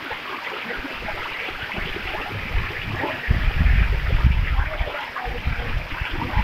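Fast floodwater rushing and churning over a flooded field, a steady hiss of moving water. About three seconds in, a heavy low rumble joins it.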